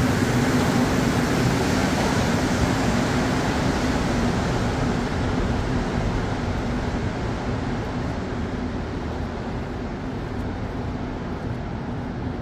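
Rubber-tyred Montreal Metro Blue Line train pulling out of the station, its rumble fading over several seconds and leaving a steady station hum.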